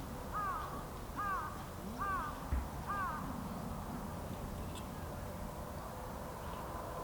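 A crow cawing four times in an even series, each call a short rising-then-falling caw, less than a second apart.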